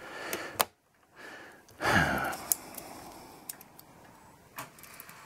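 A few sharp, isolated metal clicks as a pivot locator tool and the brass plate are worked against the arbors of a clock movement during reassembly, with a breathy sigh about two seconds in.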